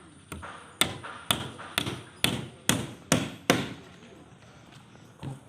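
A hammer striking repeatedly at about two blows a second, seven sharp strikes, then stopping about three and a half seconds in.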